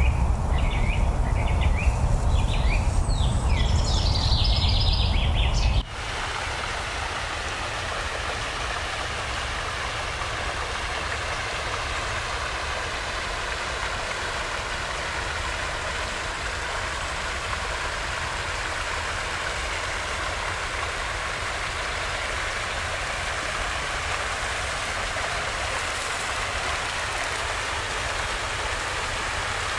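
River water rushing and splashing through a wooden log-and-lattice weir in a fast stream, a steady even rush. For about the first six seconds it is preceded by a louder low rumble with short high chirps, which cuts off suddenly.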